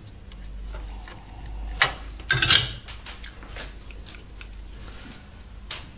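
Small hard objects handled on a workbench: a sharp click about two seconds in, a short clatter right after it, then scattered faint ticks and taps.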